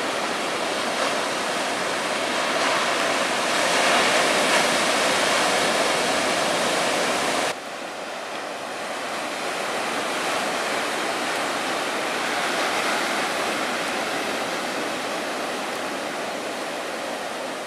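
Ocean surf: waves breaking and washing ashore as a steady rushing noise. It swells a few seconds in, drops suddenly about seven and a half seconds in, and carries on more quietly.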